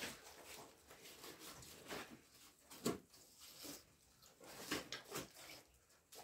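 Faint scattered knocks and scrapes of a pig carcass being cut and handled on a table, with one louder knock about three seconds in.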